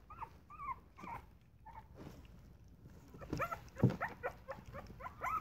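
Young Boston terrier puppies making short high squeaks and whimpers as they eat. The squeaks are sparse at first and come thick and fast from about three seconds in.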